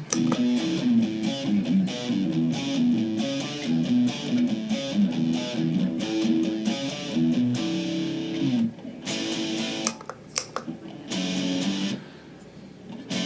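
Electric guitar played through a Boss SD-2 Dual Overdrive pedal, its overdriven tone in a run of quick single-note riffing, then a few held chords with short breaks from about nine seconds in.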